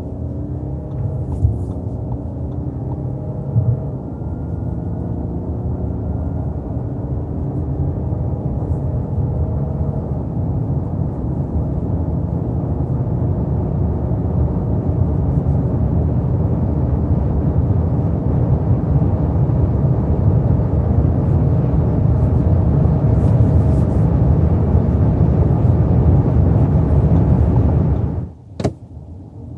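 Audi Q8 50 TDI's 3.0 V6 diesel pulling at full throttle, heard from inside the cabin: engine pitch climbs and drops back with each upshift of the eight-speed automatic. Road and wind noise grow louder as speed builds. The sound cuts off suddenly near the end.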